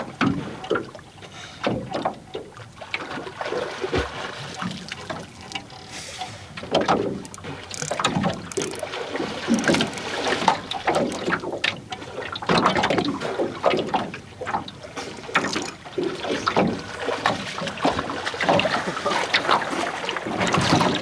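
A person swimming through choppy water, with irregular splashes from the strokes throughout.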